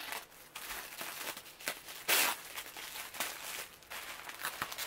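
Tissue paper and packaging wrap rustling and crinkling as hands unfold and unwrap them, in irregular bursts, with one louder rustle about two seconds in.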